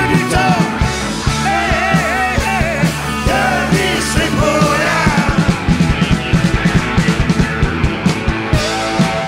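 Live rock band with drums and electric guitar, with male voices singing and shouting over it through the first half. About five seconds in the drumming grows busier, and a held note comes in near the end.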